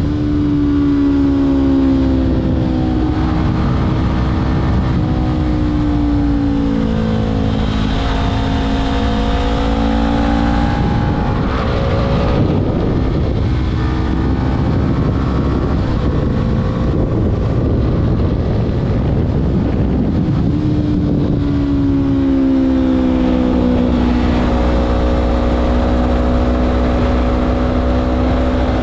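Honda CBR500R parallel-twin engine through a LeoVince LV10 slip-on exhaust, riding on the road: engine pitch falls in steps during the first ten seconds or so, turns rougher and less even in the middle, then settles to a steady pitch near the end.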